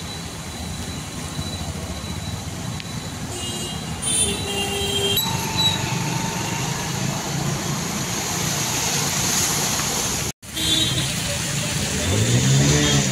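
Motor traffic driving along a flooded street: car and motorcycle engines running under a steady wash of noise, with short high tones about four seconds in. The sound drops out for a moment about two-thirds of the way through.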